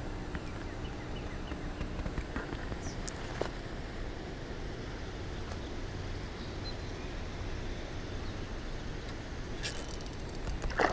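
A steady low background rumble with a few faint ticks. Near the end a spinning reel is cranked, giving a fast run of ticking.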